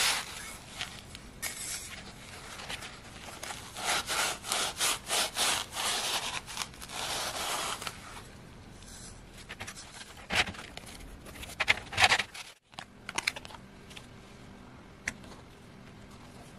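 Scouring pad rubbing a metal binocular part coated in white paste, in repeated back-and-forth scrubbing strokes. About three quarters of the way through the scrubbing stops, leaving only faint handling and a click or two.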